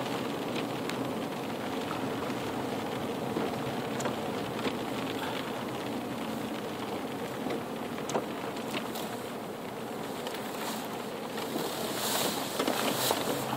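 Car driving slowly, with steady engine and road noise heard from inside the cabin and scattered small clicks. A louder hiss comes through briefly near the end.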